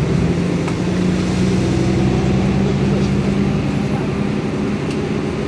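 Bus engine running at a steady cruise, heard from inside the passenger cabin: a constant low drone with a few held tones, mixed with tyre noise on the wet road.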